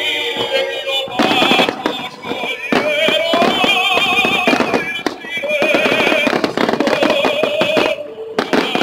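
Pyromusical show music with long, wavering held notes, over a dense run of sharp pops and bangs from aerial fireworks shells and comets bursting.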